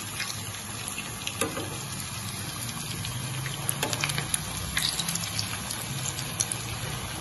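Grated-potato patties sizzling in shallow hot oil in a frying pan, with a few light clicks of a spoon and fork against the pan as they are turned over.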